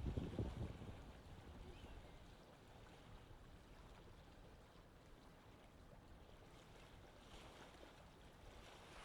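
Near silence: a faint low rumble in the first second fades into a quiet, even background hiss.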